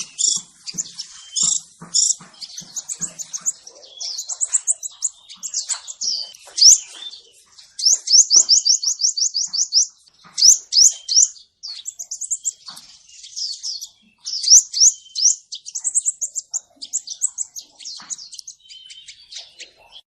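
Male crimson sunbird singing: a continuous string of high, thin chirps and fast trills of rapidly repeated notes, with a brief pause about ten seconds in.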